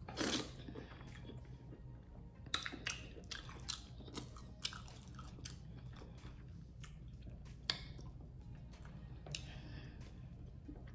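Close-up chewing of lobster meat: a bite right at the start, then wet mouth smacks and clicks scattered irregularly as it is chewed.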